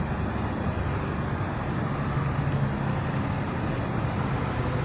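Diesel bus engine running close by: a steady low drone over a general traffic rumble, getting somewhat louder about halfway through.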